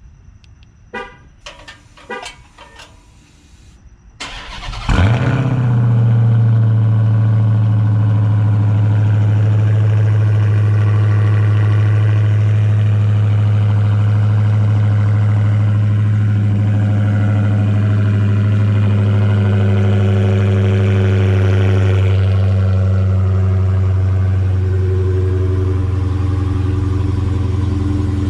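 Dodge Charger SRT Hellcat's supercharged 6.2-litre HEMI V8 cold-starting: a few short sounds, then the starter cranks about four seconds in and the engine catches a second later. It then settles into a loud, steady cold-start idle.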